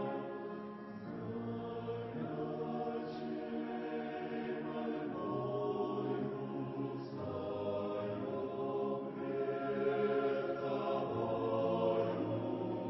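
Choir singing a slow hymn in long, held chords that change every second or two.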